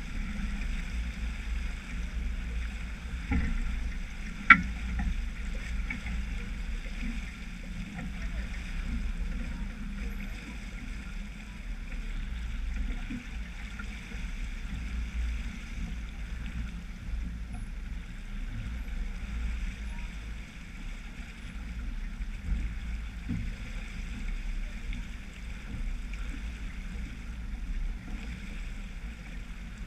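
Water rushing along the hull of a sailboat under sail through choppy water, with a steady low wind rumble on the microphone. A single sharp click or knock about four and a half seconds in.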